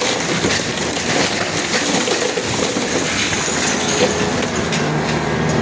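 Building demolition: concrete being crushed and broken, with a dense, continuous clatter of knocks and cracks.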